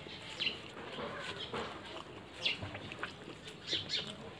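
Close-miked eating sounds of rice with dal and vegetables eaten by hand: chewing and lip smacks, with several short, high squeaky sounds.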